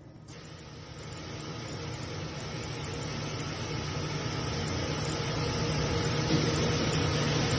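Gildemeister Sprint 65 Linear CNC lathe running: a steady machine hum with a hiss above it that starts suddenly a moment in and grows steadily louder.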